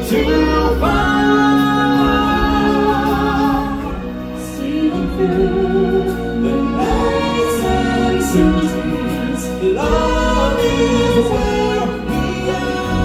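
Stage-show music with a choir singing long, held notes.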